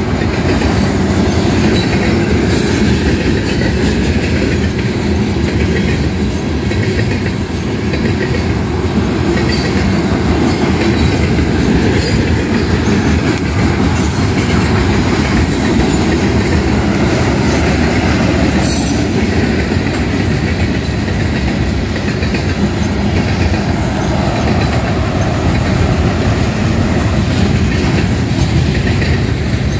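Freight cars of a Union Pacific manifest train rolling past: a steady, loud rumble of steel wheels on the rails, with scattered clicks and clacks as the wheels run over the track.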